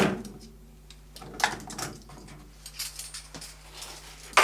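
Dishes and plastic items clinking and knocking as they are handled in the dishwasher after a wash: several light knocks and rattles, then a louder, longer clatter at the very end.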